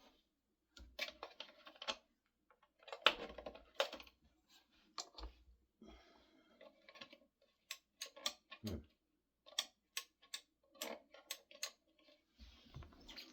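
Scattered clicks, taps and short scrapes of hands handling a small air compressor that has failed to start; no motor is running.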